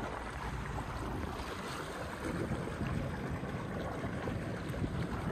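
Water splashing and rushing along the hull of a Taiga Orca electric jet ski cruising slowly. Its electric drive is quiet at this low speed, leaving a steady wash of water over a low rumble.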